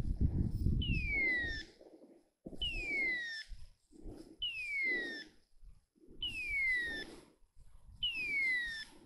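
A hunting dog's beeper collar sounding its falling hawk-scream tone five times at an even pace, about every 1.8 s. This is the point-mode signal such collars give when the dog stands still on birds. Soft low rustling fills the gaps between the tones.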